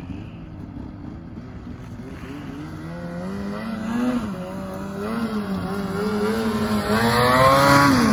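Snowmobile engine running under changing throttle, its pitch rising and falling several times as the sled approaches. It grows louder and is loudest near the end as it comes close.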